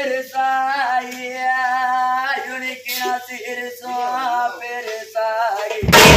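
A single voice singing an oppari, the Tamil funeral lament, unaccompanied, in long wavering held notes. Loud drumming comes back in near the end.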